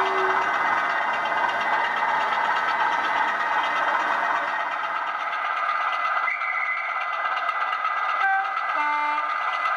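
Sound-fitted 00 gauge model diesel locomotives running, a steady hum of engine sound and motor whine. A short horn note sounds at the start, and two short horn notes come in quick succession near the end.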